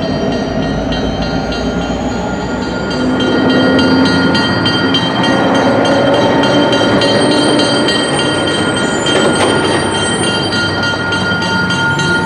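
Diesel-electric locomotives running at a shop track, one creeping slowly forward, with steady high-pitched whining tones over the engine noise. The sound gets louder about three seconds in.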